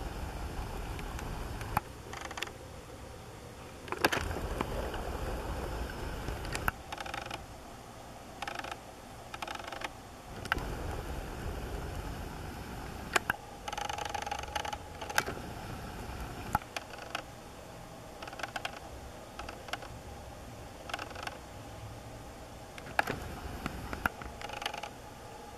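Camcorder handling noise: scattered sharp clicks and short whirring bursts from the camera's zoom and from the hand on the camera body, over a low rumble for the first six seconds or so.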